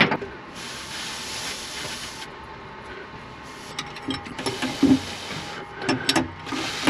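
Small metal clinks of a box-end wrench working a stainless hose clamp on an exhaust hose, a few around the middle and again near the end, between stretches of steady hissing.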